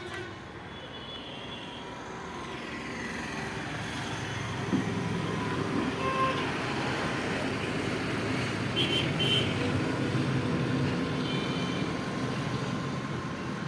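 Renault Duster's engine running, growing louder over the first few seconds, with one sharp knock about five seconds in and a pair of short high beeps around nine seconds.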